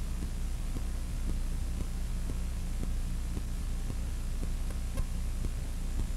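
Steady low electrical hum with an even hiss above it, and a single light click about five seconds in.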